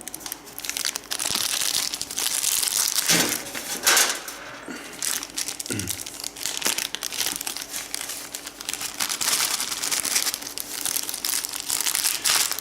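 Plastic accessory bag from a PC case being handled and opened, crinkling, with a few sharper knocks partway through.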